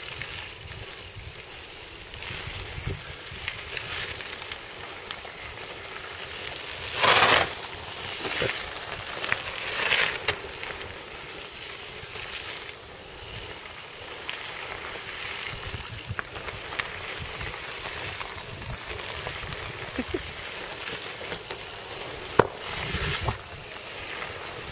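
Mountain bike tyres rolling over a dirt-and-gravel pump track, with scattered clicks and a few short gritty scrapes as riders pass, the loudest about a third of the way in, over a steady hiss.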